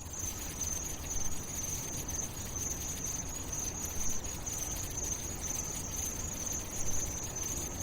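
A steady, high-pitched, trilling, insect-like buzz, like crickets, over a low, even background hiss.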